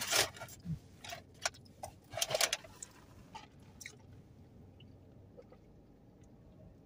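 Close-up eating sounds: chewing, with a few short wet mouth clicks and brief rustles in the first few seconds. After that it goes faint, with only small soft ticks while a drink is sipped through a straw.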